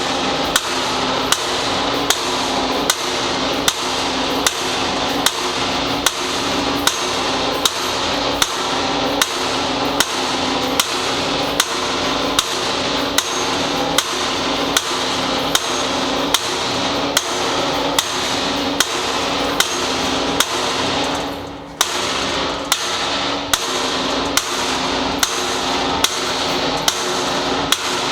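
Hammer blows on a steel punch against a gun safe's deadbolt, about three strikes every two seconds, with the safe's steel body ringing between blows. The hammering pauses briefly about 21 seconds in, then goes on.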